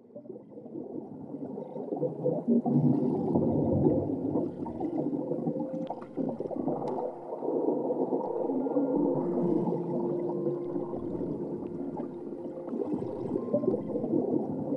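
Muffled underwater soundscape: a dense, low wash of water-like sound with a few held low tones drifting through it, swelling in over the first couple of seconds.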